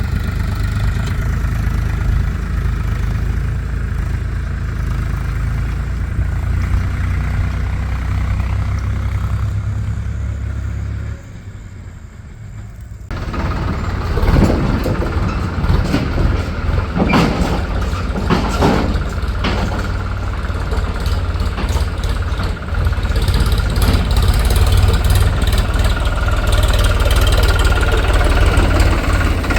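Heavy diesel engines of a backhoe loader and farm tractor running, with a brief drop in level about a third of the way in, then a run of knocks and clatters.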